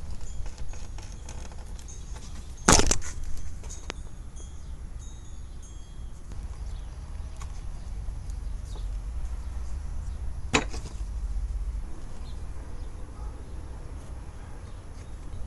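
Small taps and rubbing of hand tools and leather on a wooden workbench, with two sharp knocks about eight seconds apart, the first louder, over a low steady hum.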